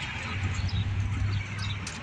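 Outdoor street ambience: a steady hum of traffic with a low drone through most of it, and a few faint bird chirps near the end.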